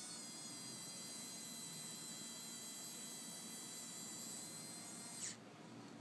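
Small electric motor and gearbox (Tamjets E-gear) running with a steady high-pitched whine, then slowing under load: about five seconds in the pitch drops sharply and it stops.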